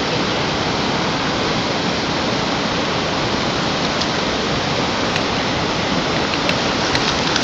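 Fast, shallow river water rushing over rocks: a steady, even rush, with a few faint clicks in the second half.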